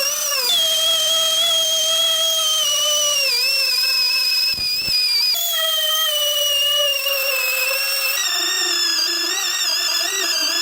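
High-pitched whine of an electric power tool running at speed, its pitch sagging and wavering as it is worked under load and shifting to a new pitch a few times.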